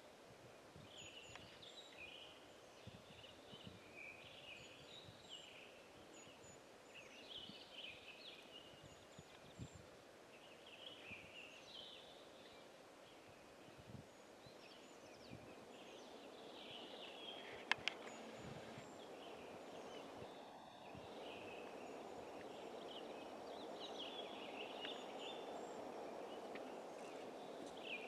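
Faint outdoor bird song: short chirping phrases repeated every second or two, over a rustling background that grows louder in the second half. There are two sharp clicks about 18 seconds in.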